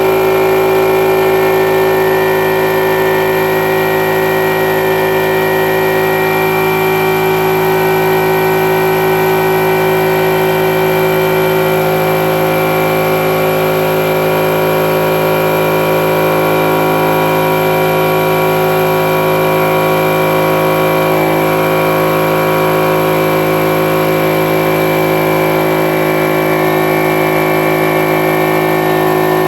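Central Pneumatic 6-gallon oilless air compressor, with a 1.5 horsepower motor, running steadily on its first start-up as it fills its tank.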